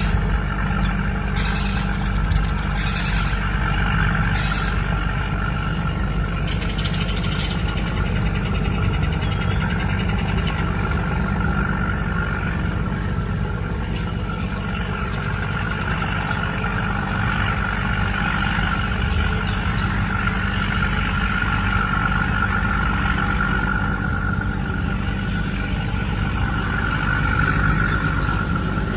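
A large river passenger ship's diesel engines running steadily: a deep drone with a steady whine above it. A few short hisses come in the first several seconds.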